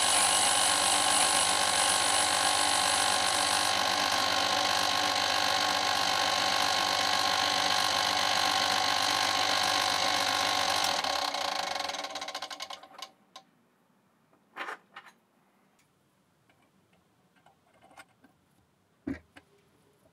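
Emco Unimat SL mini lathe running steadily, its motor and spindle spinning a small bar in the chuck, with a higher cutting hiss that stops about four seconds in. The motor is switched off about eleven seconds in and winds down within a couple of seconds, followed by a few light metallic clicks and knocks as the chuck is handled.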